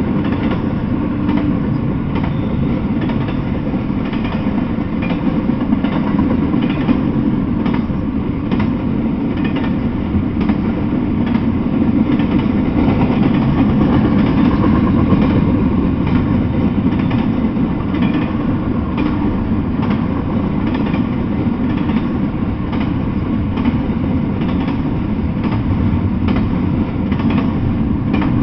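Double-stack intermodal freight train rolling past: a steady rumble of steel wheels on the rails, with frequent light clicks as the wheels cross rail joints.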